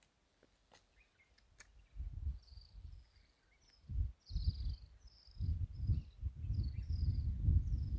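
Wind buffeting the microphone in irregular gusts from about two seconds in, heaviest in the second half, while a bird chirps over it in a quick series of short, high calls.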